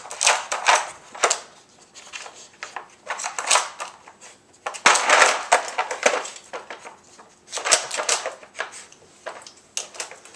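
Plastic Dog Twister puzzle feeder being pawed and nosed by a puppy on a tile floor: irregular clicking, clattering and scraping of hard plastic as its sliding chambers are pushed. The longest burst of clatter comes about five seconds in.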